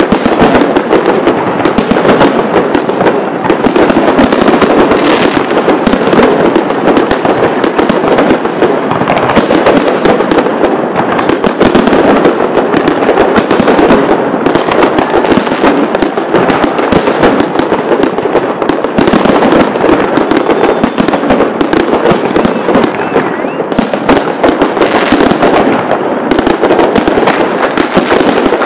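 Fireworks going off in a dense, unbroken barrage of loud bursts and crackle, with no pause between them.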